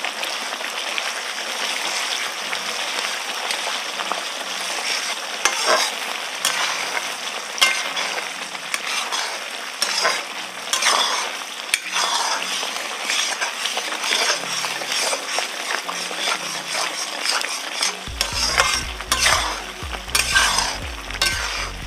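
Roselle (kudrum) and jaggery sizzling in hot mustard oil with fried garlic in an aluminium kadhai. A spatula stirs and scrapes the pan in repeated strokes over a steady frying hiss.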